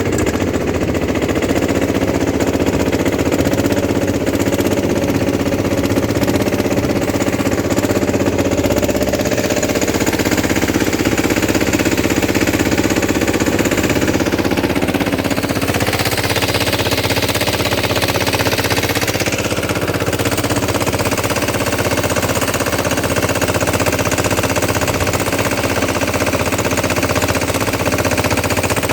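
Single-cylinder diesel engine of a three-wheel sanedo tractor running with a steady, rapid chugging.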